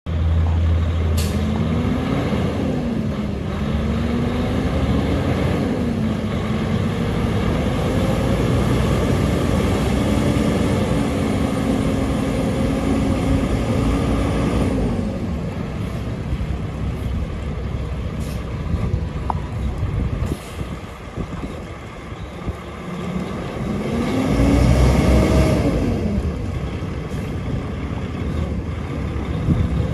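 Paccar 12.9-litre inline-six diesel in a Kenworth T700 semi truck running, its revs climbing and dropping back several times. The pitch holds steadier for a few seconds in the middle, the engine goes quieter for several seconds, and then it revs up and back down again.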